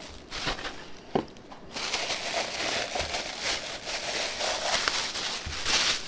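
Packaging crinkling and rustling as a ceramic mug is pulled from its cardboard box and unwrapped from its protective wrapping, with a sharp click about a second in. The crinkling runs on steadily from about two seconds in.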